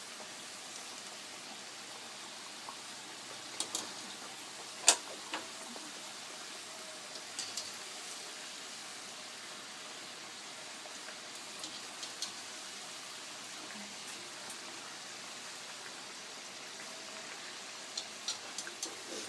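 Samosas deep-frying in oil on low heat: a steady sizzle with scattered sharp pops, the loudest about five seconds in and a cluster near the end.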